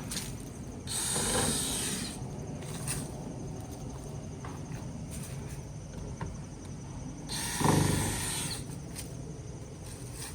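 A pressure washer giving two short spray blasts of about a second each, one about a second in and one near the end, hissing over a steady low hum.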